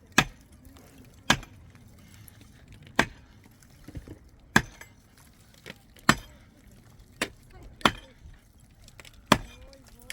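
A tool striking wood in slow, regular blows, about one every second and a half: sharp single strikes, seven or so, like chopping or pounding timber.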